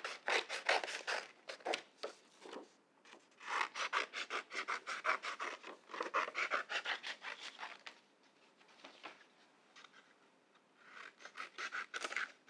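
Scissors cutting through paper in runs of quick, sharp snips, with a short break about three seconds in and a longer lull of about three seconds before a last run near the end.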